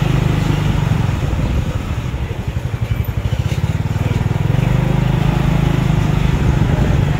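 Motorcycle taxi's small engine running as the bike rides along a street, heard from the pillion seat. About two seconds in, the engine note eases off for a couple of seconds, then picks up again.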